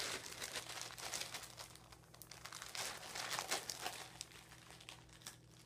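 Rustling and crinkling of a backpack and packed gear being handled as hands dig through it, in irregular bursts that are busiest for the first four seconds and thin to a few light clicks near the end.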